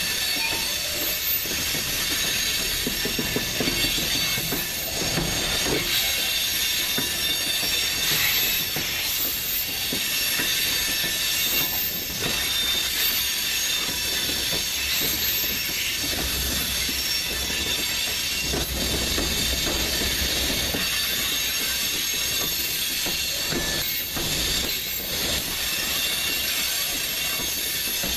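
Freight train of covered hopper cars rolling past close by, its wheels squealing steadily against the rails on the curve, with wheel clatter over the track underneath.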